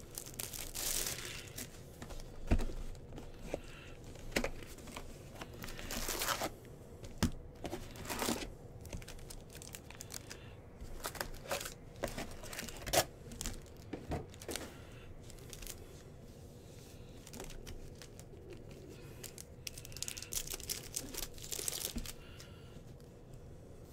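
Trading-card pack wrappers being torn open and crinkled, in irregular rustling bursts with a few light knocks as cards are handled.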